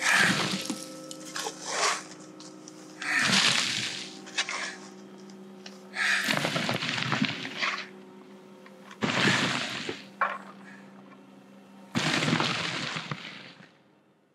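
A digging tool is swung hard into earth and rock five times, about every three seconds, each blow cracking and crumbling. A low, held music drone runs beneath the blows and stops after the last one.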